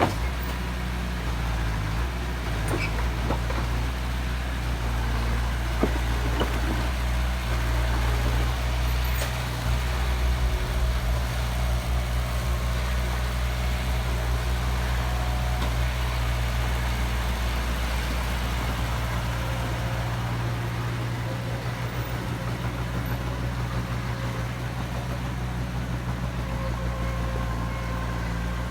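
Heavy construction machine's engine running steadily, a low drone.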